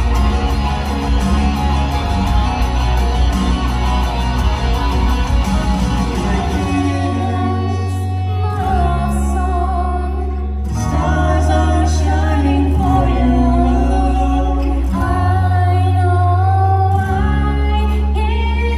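Live band playing a song, with a singer's voice over guitar and bass. From about seven seconds in, deep bass notes are held for two or three seconds each under a wavering sung melody.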